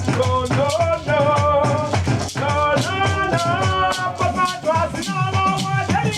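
Church praise music: a maraca-like shaker keeps a steady beat under a wavering melody line.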